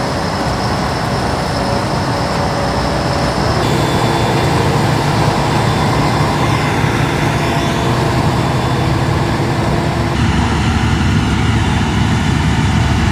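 Heavy diesel harvest machinery running under load: potato harvester and tractor engines with rattling machinery noise. The sound shifts suddenly twice, at about four seconds and about ten seconds in.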